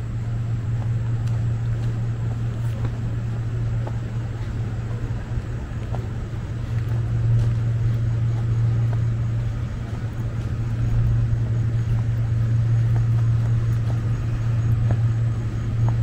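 Steady low hum of running machinery, growing a little louder about seven seconds in.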